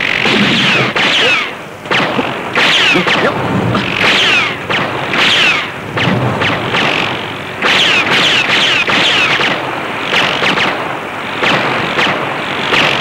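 Battle sound effects of rocket fire and explosions: many short falling whistles over bursts of dense booming, crackling noise, broken by brief lulls.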